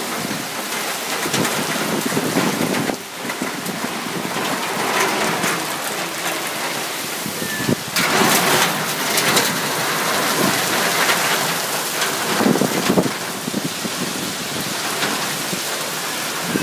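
Heavy cyclone rain pouring down with strong wind. A steady rush that swells and eases in gusts, louder about halfway through.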